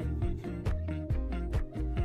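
Background pop song with a steady drum beat and bass, in a short gap between sung lines.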